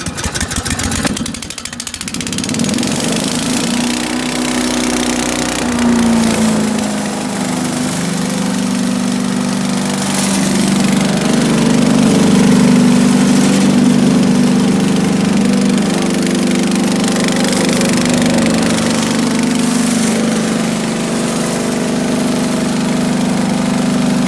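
Earthquake Tazz wood chipper's 212 cc single-cylinder petrol engine starting up within the first couple of seconds, then running steadily through its warm-up.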